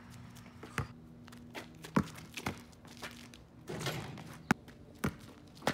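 Basketball bouncing on an asphalt court: a handful of sharp, irregular thuds, the loudest about two seconds in and again about four and a half seconds in.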